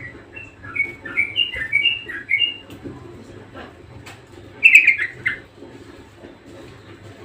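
Budgerigar chirping: a quick run of short chirps over the first three seconds, then a louder, harsher burst about five seconds in.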